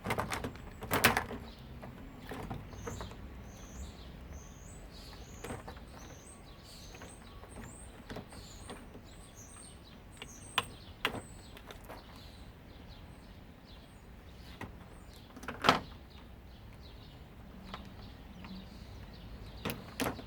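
Scattered sharp clicks and knocks of hand tools and metal parts as a washing machine is taken apart, the loudest one about two-thirds of the way through. A bird chirps a quick run of short high notes through the first half.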